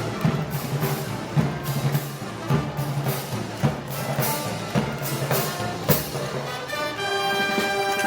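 Moros y Cristianos festival band music: drums striking a steady march rhythm over low bass notes, with held brass chords coming in about seven seconds in.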